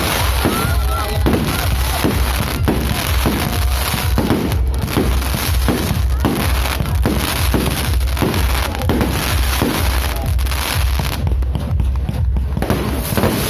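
Fireworks going off in rapid succession: a steady run of bangs, roughly two a second, over continuous crackling, with music playing underneath.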